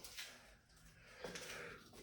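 Faint scraping of a knife edge stroked along a sharpening stone on a guided sharpener, a little over a second in, in a quiet room.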